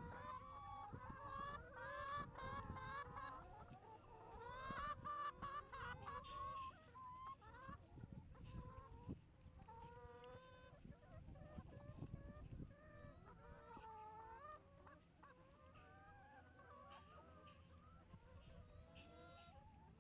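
A flock of brown laying hens clucking and calling together, many overlapping voices. The calls are busiest in the first several seconds and thin out after.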